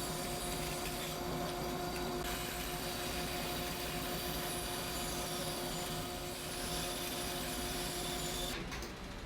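Bandsaw running and cutting a mahogany handle blank, a steady motor hum with a hiss of the blade in the wood, which stops near the end.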